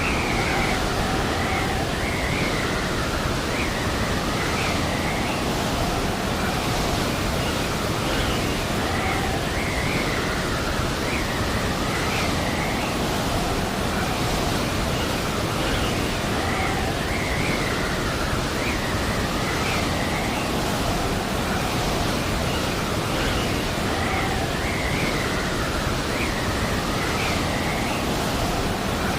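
Steady roar of blizzard wind, with a faint howl rising and falling over it.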